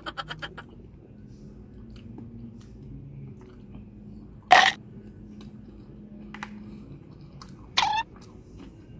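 Chewing and eating sushi close to the microphone, with small mouth clicks. A brief loud sharp noise comes about halfway through, and a short sound falling in pitch comes near the end.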